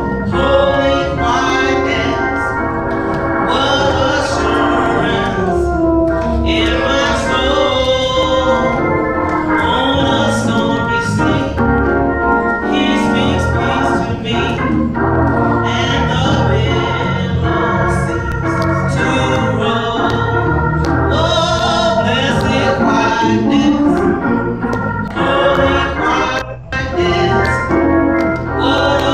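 A woman singing a slow gospel solo with vibrato, backed by sustained organ chords and light drums with cymbal hits.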